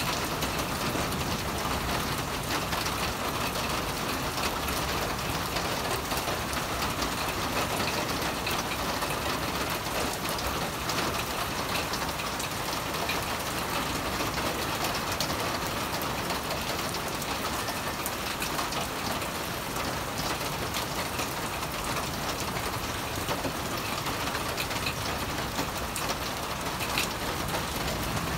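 Steady rain falling on wet ground and puddles, an even hiss of many small drops.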